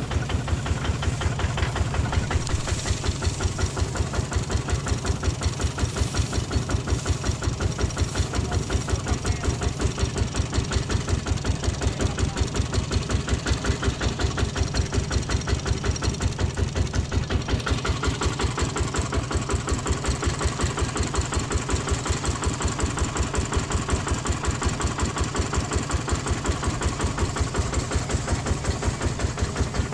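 Engine of a straw baler running steadily under load, with an even, rapid pulsing beat.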